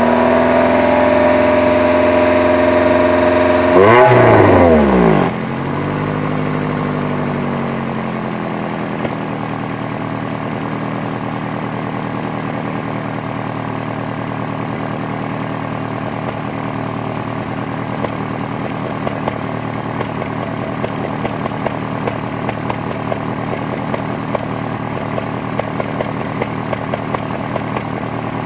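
2001 Honda Prelude's 2.2-litre four-cylinder engine held at raised revs, blipped once about four seconds in, then dropping back to a steady idle with faint irregular ticks through it. The engine is throwing a cylinder 2 misfire and random misfires, which the owner thinks may be worn piston rings.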